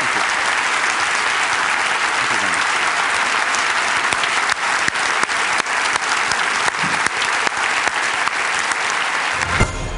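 Large audience giving a standing ovation: dense, sustained clapping. It cuts off just before the end as music begins.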